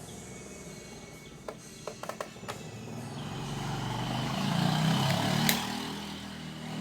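A motor vehicle passing by: a low engine rumble that swells over a couple of seconds, peaks about five seconds in and then fades. A few small clicks come before it.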